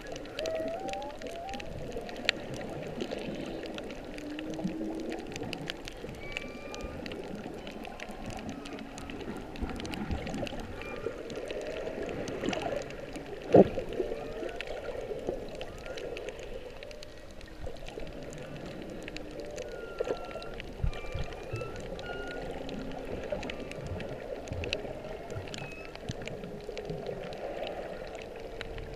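Humpback whale song heard underwater through a GoPro housing: a string of short squeaks, moans and upsweeping calls at varied pitches, over a steady crackling hiss of water. A single sharp knock about halfway through stands out above everything else.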